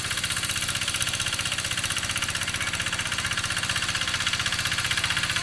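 Quick G3000 two-wheel hand tractor's single-cylinder diesel engine running steadily under load with a fast, even chug as the tractor pulls through the soil.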